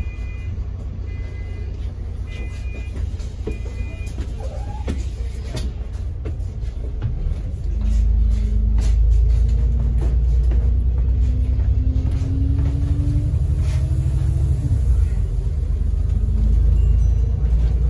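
London double-decker bus running with a low rumble, with four short electronic beeps in the first few seconds. About eight seconds in, the engine noise swells as the bus pulls away and speeds up, and a whine climbs slowly in pitch for about six seconds before dropping back.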